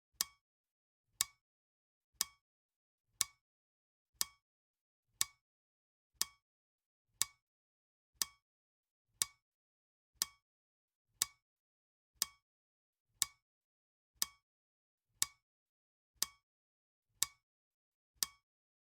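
Clock ticking: sharp, evenly spaced ticks once a second with silence between, marking the seconds of a countdown timer.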